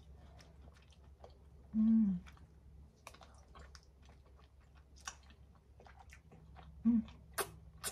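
A person chewing soft food close to the microphone, most likely a mochi, with wet mouth clicks throughout. There is a short closed-mouth 'mm' hum about two seconds in and again about seven seconds in, and a couple of sharper clicks near the end.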